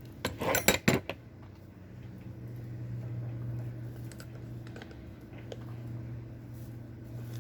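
A few quick metallic clicks from a socket wrench tightening the nut on a roller-skate truck, then a steady low hum.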